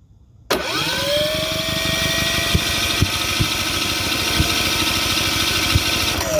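Cummins P4500i inverter generator's engine being cranked for about six seconds without catching on a no-start. A whine rises about half a second in, holds steady over uneven knocks, and falls away near the end as the cranking stops.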